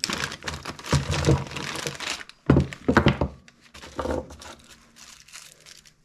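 Rustling and clattering handling noise in three loud bursts over the first four seconds, then dying away.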